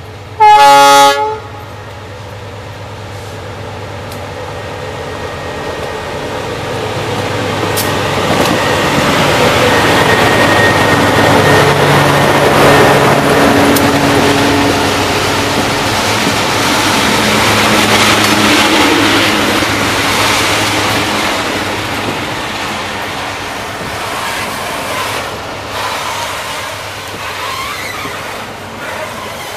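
A diesel locomotive horn sounds one short blast, about a second long. Then the engines of a multi-unit set of diesel-electric freight locomotives build up as they come close and pass, and fade as the freight wagons roll by.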